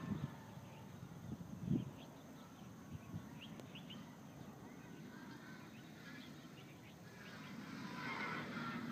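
Wind buffeting the microphone in uneven gusts, with a few faint short chirps and a louder rush of air building near the end.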